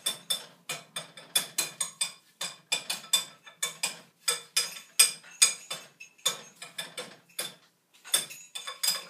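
Background music with a busy clicking, ticking beat of about three to four sharp hits a second.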